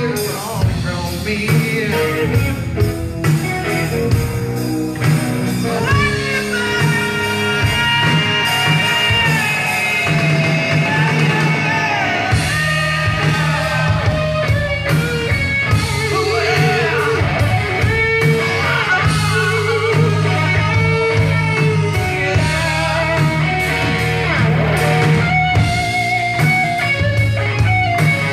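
Live rock band playing a classic psychedelic-rock number: electric guitars and drums under a male singer, amplified through a theatre PA.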